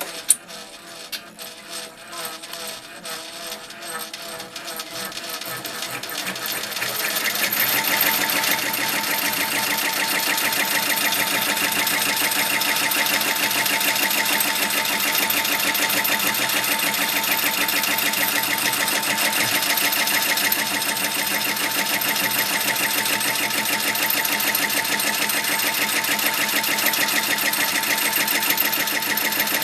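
Brother PR1000e embroidery machine speeding up from slow stitching to full speed over about seven seconds, then running steadily with a fast, even stitching beat. A steady tone rides over the beat, which the title puts down to a squeaking shaft.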